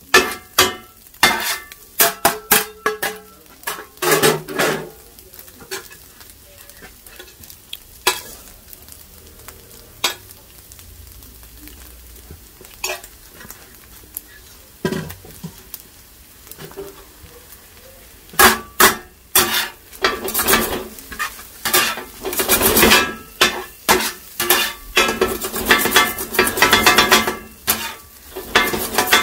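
A pair of flat metal kothu blades chopping kothu roti on a flat griddle: rapid, rhythmic metal-on-metal clanging with a ringing edge. A burst of strikes comes at the start and a long, dense run starts a little past the middle, with a quieter stretch of faint sizzling and only occasional clinks between them.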